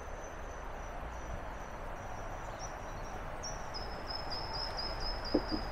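Steady rush of running water from the stream and spring. Over it, a thin high call repeats as a string of short notes, dropping slightly in pitch partway through, and a couple of soft knocks come near the end.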